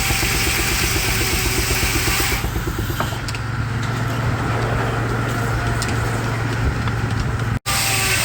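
Baker steam engine running steadily as it powers the sawmill, with a low hum and a fast rhythmic beat. A rushing, hissing noise over it stops about two and a half seconds in, and the sound drops out for an instant near the end.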